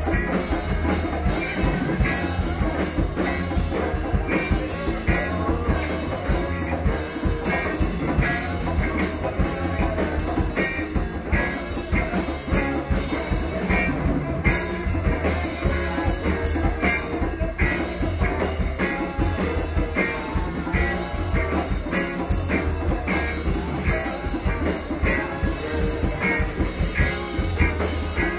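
A live band playing a song: a drum kit keeps a steady beat under bass and guitar.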